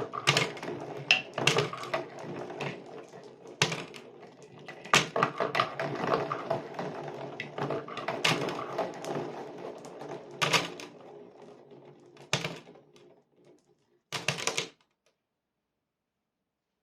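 Glass marbles rolling and clattering down a cardboard marble run, with a steady rolling rumble broken by sharp clicks as they knock against the track. The rolling fades out about 12 seconds in, and a last short rattle comes around 14 seconds.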